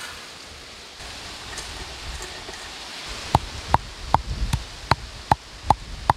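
Stone mortar and pestle pounding whole spices (cloves and fennel seeds). The sharp, even knocks come about two and a half times a second, starting about three seconds in.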